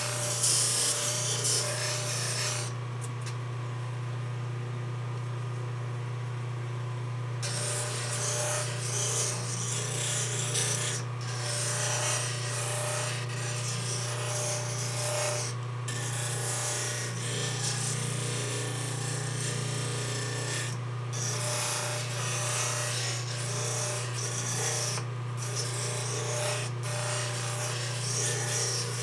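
Belt sander running with a steady motor hum while a knife handle is ground against the belt, giving a rasping hiss. The grinding stops for a few seconds near the start and breaks off briefly several more times while the motor keeps running.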